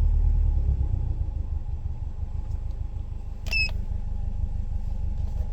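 Subaru Forester's flat-four boxer engine idling with a tapping or knocking from the motor, the kind of knock that has set a knock sensor code. A short high chirp sounds about three and a half seconds in.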